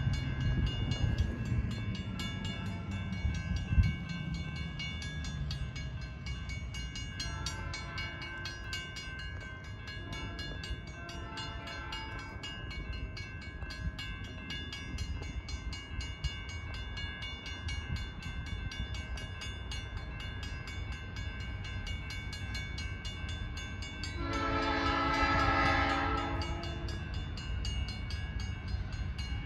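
Diesel freight locomotive's horn sounding in the distance as the train approaches: two blasts about 7 and 11 seconds in, then a louder, fuller blast about 24 seconds in.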